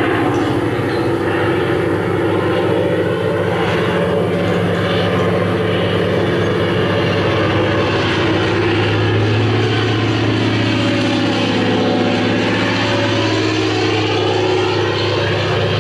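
Propeller-driven aircraft engine running steadily with a deep, even hum. About two-thirds of the way through, its tone sweeps down and back up.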